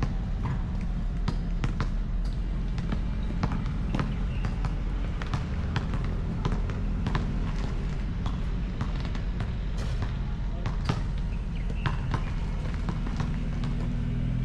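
Basketball bouncing and knocking on a hard court in irregular strikes, over a steady low rumble.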